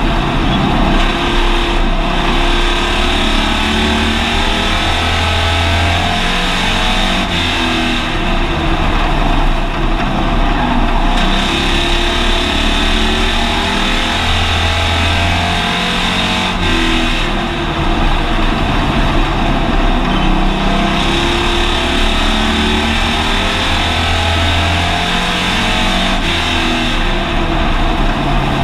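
Hobby stock race car's engine heard from inside the cabin, running hard at racing speed with wind and road noise. It eases off three times, about every nine seconds, and comes back on the throttle after each.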